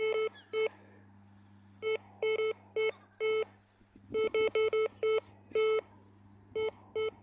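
Viking VK30 metal detector giving short, identical mid-pitched beeps in quick clusters as its coil passes back and forth over a bolt and nails. With the discrimination turned off, every iron target sounds. A low steady hum runs underneath.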